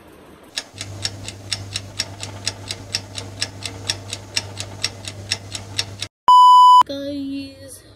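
Clock ticking sound effect, about four even ticks a second over a steady low hum. It is cut short by a loud half-second beep, then a brief lower tone.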